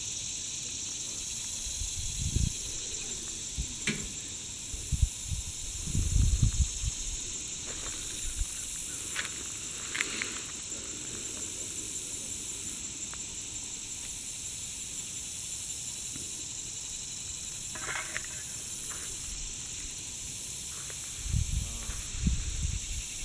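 A steady, high-pitched chorus of insects drones on without a break. A few low thumps of wind and handling hit the microphone now and then.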